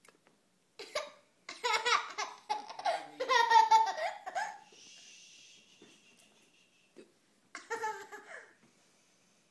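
A young child with hiccups, hiccuping and laughing in short, high-pitched bursts. The loudest stretch of laughing comes between about one and a half and four and a half seconds in, with another short burst near the end.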